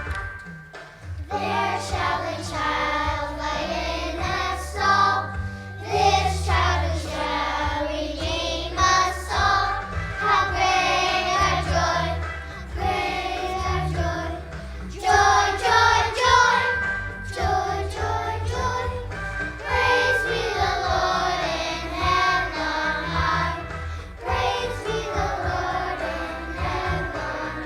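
A children's choir singing with a recorded accompaniment track.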